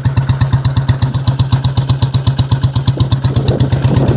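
2004 Royal Enfield Bullet Electra's single-cylinder four-stroke engine idling, an even, rapid thump of exhaust pulses through a free-flow bend pipe and mesh-type silencer.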